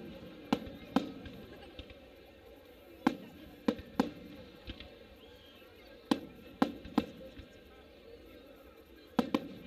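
Aerial firework shells bursting overhead: about ten sharp bangs, coming in clusters of two or three a few seconds apart.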